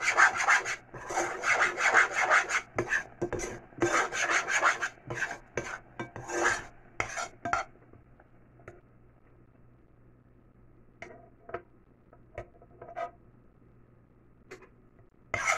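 A utensil scraping and stirring against the bottom of a saucepan holding a hot, thick mixture, in quick rasping strokes for about the first seven seconds, then only a few scattered scrapes near the end.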